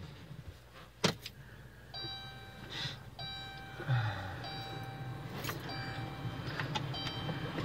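2014 Chrysler Town & Country cold start: a click about a second in, then the dashboard warning chime repeating about once a second. About four seconds in, the 3.6-litre V6 starts and settles into a steady low idle under the chime.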